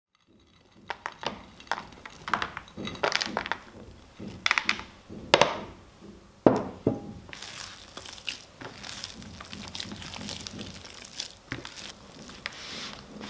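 Hands working raisins into sticky paska dough in a plastic tub: first a run of light clicks and knocks as the raisins are tipped out of a small glass bowl and pressed in, with two sharper knocks a little past the middle, then steadier squishing and rustling of dough being kneaded against the plastic.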